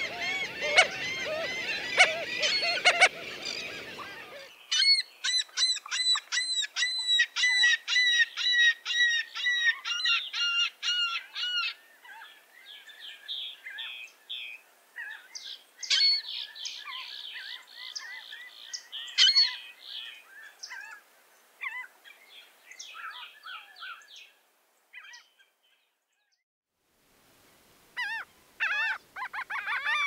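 Laughing gulls calling: a dense chorus of calls over a low rushing noise for the first few seconds, then a long rapid series of laughing 'ha' notes, several a second. Fainter scattered calls follow, a pause of a couple of seconds near the end, then calls start again.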